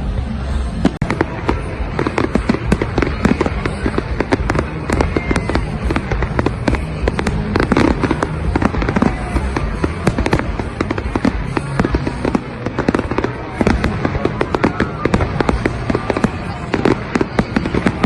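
Fireworks going off in a dense, continuous barrage: many sharp bangs and crackles a second with no break.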